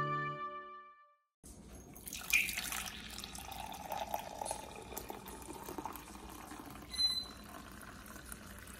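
Coffee pouring from a stainless thermal carafe into a ceramic mug, a steady splashing trickle that starts about a second and a half in, after the last notes of a music jingle fade out.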